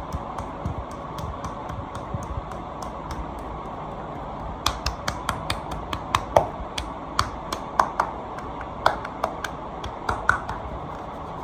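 Back cracking: a run of sharp cracks and pops over a steady hiss, sparse at first, then coming about two or three a second and louder from about halfway.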